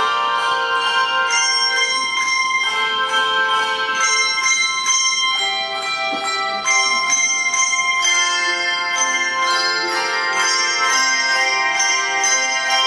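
A handbell choir playing a lively piece, many bells struck in quick succession and ringing on as chords.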